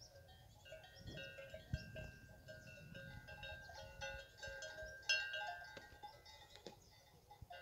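Cattle bells (cencerros) clanking and ringing irregularly as collared cows move about a corral, with a couple of sharper clanks, the loudest about five seconds in.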